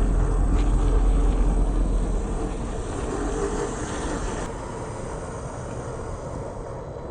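Electric motor and gear drivetrain of a 1/10-scale RC crawler running, a steady whine over a low rumble, getting quieter after about two seconds.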